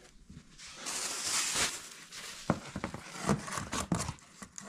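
Light handling sounds: a soft rustle, then a run of small clicks and taps as a plastic tub is set down on cardboard.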